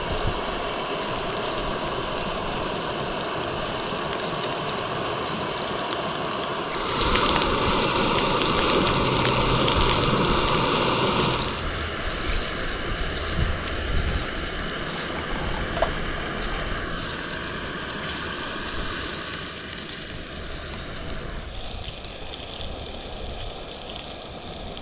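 Sausages sizzling in a frying pan, a steady hiss that swells louder for about four seconds near the middle.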